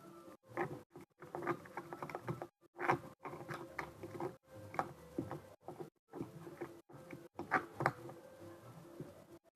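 Sticky slime and paper glue being stirred in a container, giving irregular wet, clicky squelches and pops as the tacky mixture pulls and smacks against the stirrer.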